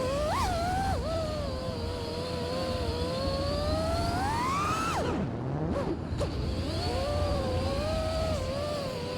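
Electric motors and 5-inch props of an FPV quadcopter (Ethix Silk 1750kv motors) whining, rising and falling in pitch with the throttle. Near the middle the whine climbs steadily to a peak, then drops away suddenly as the throttle is cut, and comes back about a second and a half later.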